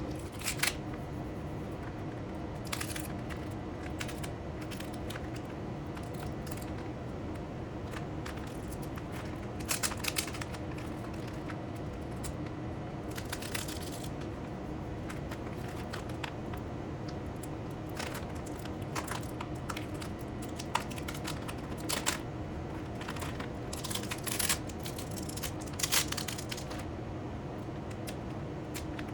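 Low-tack masking tape being handled and torn: scattered short tearing and crinkling sounds over a steady low hum.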